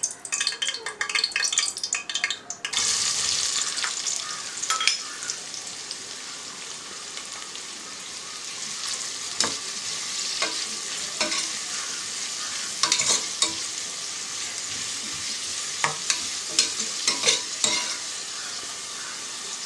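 Sliced onion frying in hot coconut oil in an aluminium pressure cooker: a steady sizzle starts suddenly about three seconds in, when the onion goes into the oil. A steel spoon clicks and scrapes against the pot, first stirring the whole spices and then the onion.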